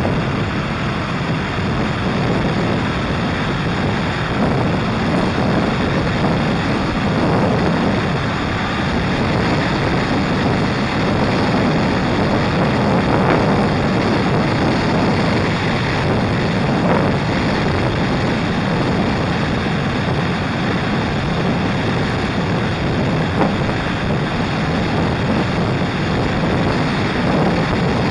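Touring motorcycle riding at road speed, heard from a camera mounted on the bike: a loud, steady rush of wind and running noise with no sudden changes.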